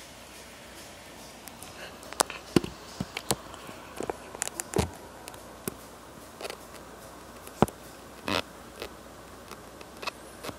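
A faint, low, steady hum: the unexplained 'woong' drone heard in the neighbourhood. Irregular sharp clicks and knocks close to the microphone sound over it, the loudest a few seconds in and again near the end.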